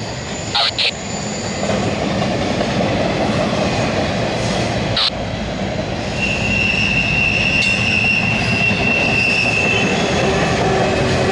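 CSX intermodal freight train's cars rolling past on steel rails: a steady rumble with a few sharp wheel clicks near the start and about five seconds in. A steady high wheel squeal runs from about six to ten seconds in.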